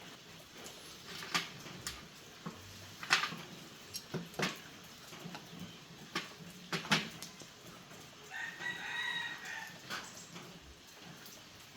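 Scattered sharp clicks and knocks, then an animal call lasting about a second and a half, about eight seconds in.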